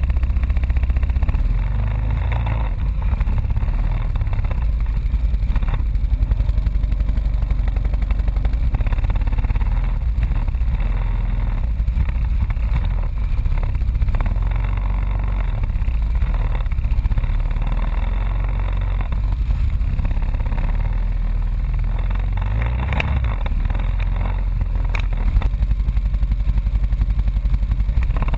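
ATV engine running at low speed close by, its low rumble rising and falling with the throttle. Two short knocks about two seconds apart near the end.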